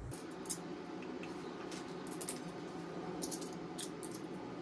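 Small metallic clicks and ticks of a CYC X1 Stealth mid-drive motor housing and its bracket hardware being handled and fitted to a bike frame with a hex key, several sharp clicks spread through, over a faint steady hum.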